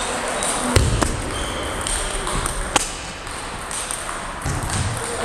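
Celluloid table tennis ball clicking off paddle and table: two sharp clicks about a second in and another near three seconds, over the background noise of a hall where other tables are in play, with faint chatter.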